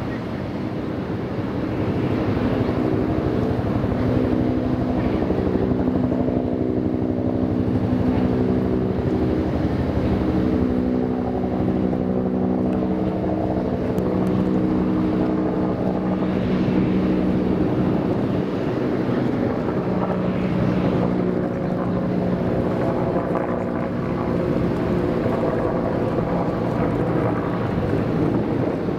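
Submarine's diesel generator running steadily to charge its batteries: a low, continuous engine hum with several shifting tones over a rushing noise.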